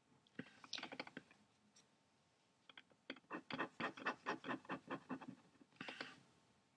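Faint ballpoint pen scratching on a paper envelope as an area is filled in: a short burst of strokes, then a quick back-and-forth run of about five strokes a second.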